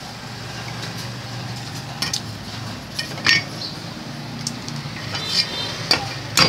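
A steel cleaver and knives tapping and clinking against a china plate and a wooden chopping block, about eight separate sharp taps spread out, a few of them with a short ringing clink.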